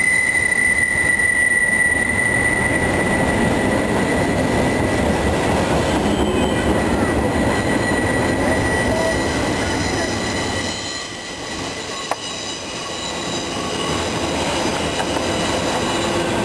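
Intermodal freight cars, carrying containers and trailers, rolling past close by with continuous wheel-and-rail noise. A steady high wheel squeal fades after the first few seconds, and fainter squealing tones come and go later. The rolling noise drops briefly about two-thirds of the way through, then picks back up.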